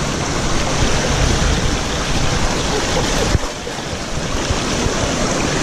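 Rushing water of a stream current close to the microphone, a steady loud wash with a short knock about three and a half seconds in, after which the rush is a little softer.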